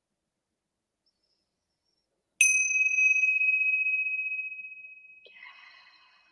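A small bell struck once, ringing a single high tone that fades away slowly over about three seconds. A faint soft noise comes about five seconds in as the ring dies out.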